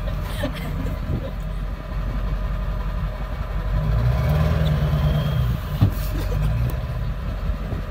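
Ford 7.3 L Power Stroke V8 turbo-diesel idling, a steady low rumble that swells briefly about halfway through. There is a single sharp knock near the end.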